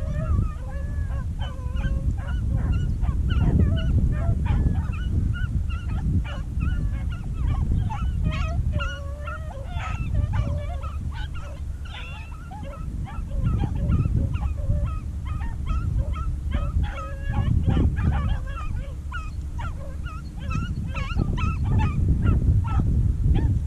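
Pack of beagles baying and yelping while running a rabbit, many short overlapping cries throughout, over a steady low rumble.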